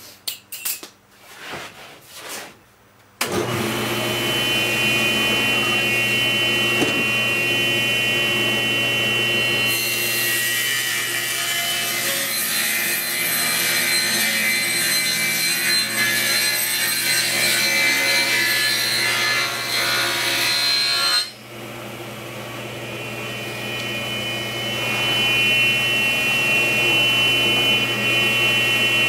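A few clicks and knocks, then a table saw switched on about three seconds in and running with a steady whine. From about ten to twenty-one seconds in, the blade cuts a quarter-inch rabbet along the edge of a plywood cabinet side, adding a rough ripping noise. After that the saw runs free again.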